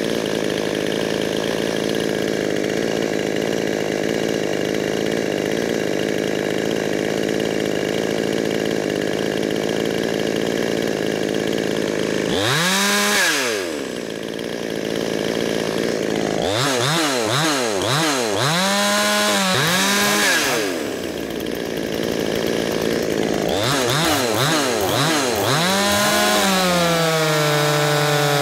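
Ported Coocheer 6200 two-stroke chainsaw running steadily at high revs while its carburettor is being leaned out. About twelve seconds in it starts being revved down and up repeatedly, the pitch dropping and climbing in a series of blips, and near the end it settles at a steadier, lower pitch.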